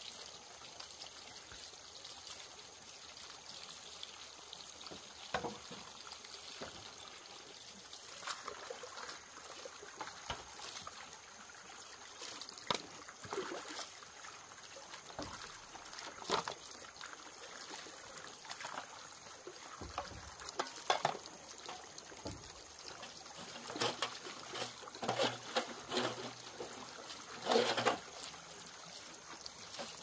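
Water trickling steadily, with scattered short knocks and scrapes that come more often near the end.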